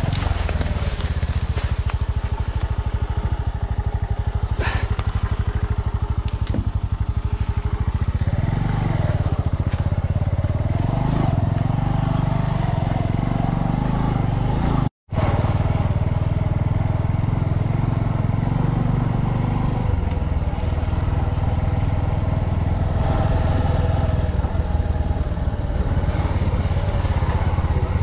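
Bajaj Boxer 150 motorcycle's single-cylinder four-stroke engine running under way, its speed shifting now and then, with a few sharp knocks in the first quarter. The sound drops out for a split second about halfway through.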